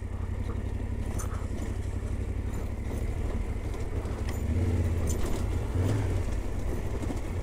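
Yamaha Ténéré 700's parallel-twin engine running at low revs, a steady low rumble, as the motorcycle rolls down a rocky dirt trail, with faint crackles of stones under the tyres. It swells a little for a couple of seconds past the middle.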